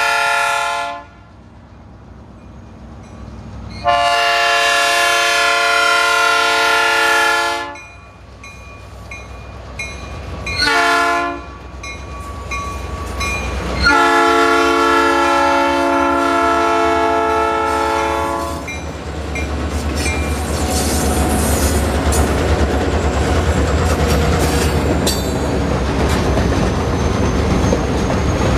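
Diesel locomotive air horn on Texas Rock Crushers locomotives 103 and 101 sounding the grade-crossing pattern: the end of a long blast, a long blast about four seconds in, a short blast near eleven seconds and a long blast at about fourteen seconds. As the locomotives pass, their diesel rumble gives way to the steady rolling clatter of covered hopper cars going by.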